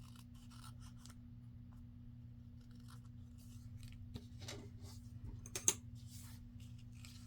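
Scissors trimming paper: a string of short snips, the sharpest about two-thirds of the way through, over a faint steady electrical hum.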